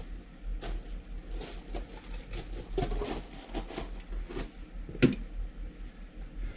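Footsteps and scattered knocks and scrapes on a wooden porch deck, with one loud sharp bang about five seconds in, heard through a porch security camera's microphone with a steady low hum beneath.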